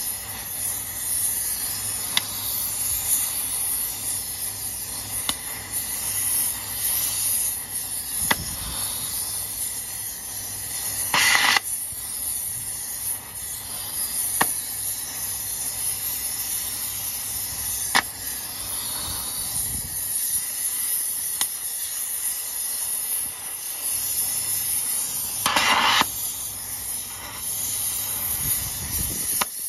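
Oxy-gas torch flame hissing steadily as it heats a truck's wheel hub and wheel nuts, with a few faint clicks and two brief louder rushes of noise, about eleven and twenty-six seconds in.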